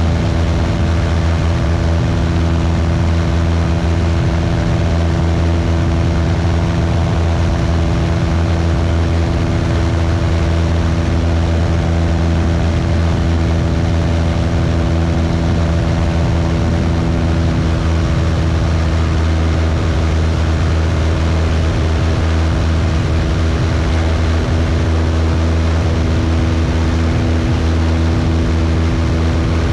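Cessna 172's piston engine and propeller running steadily in flight, a constant, unchanging drone.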